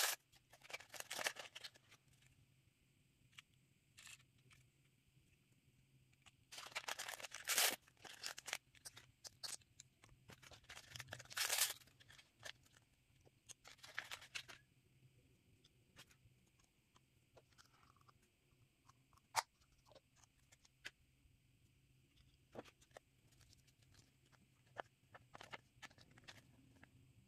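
Small plastic blind-bag packets being crinkled and torn open by hand, in several short bursts of rustling. After that come only scattered light clicks and rustles of small pieces and a paper leaflet being handled.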